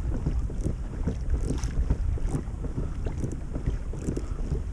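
Wind on the microphone over water slapping against the hull of a moving kayak, with small irregular splashes.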